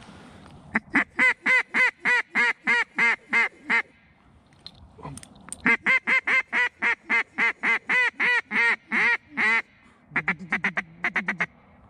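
Hand-blown duck call sounding long runs of loud, evenly spaced quacks, about four a second, calling to passing ducks: two runs of a dozen or more quacks, then a short, faster run near the end.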